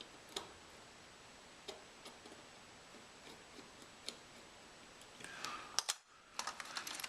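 Small metal clicks and taps of a screwdriver starting the tiny screws that hold a dial caliper's mechanism. A few scattered ticks come first, then a quicker cluster of clicks and scraping near the end.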